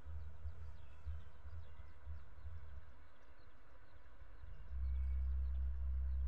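Small birds chirping repeatedly in quick short notes over a low rumble; the rumble gets louder and steadier near the end.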